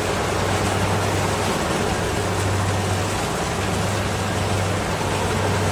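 Rice combine harvester working in the field: a steady low engine hum under an even mechanical rush from the cutting and threshing machinery.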